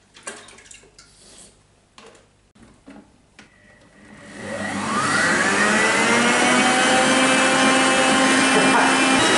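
A few light knocks as the head is lowered, then an electric stand mixer with a balloon whisk starts about four seconds in: its motor whine rises in pitch and settles into a loud, steady run as it whips cream.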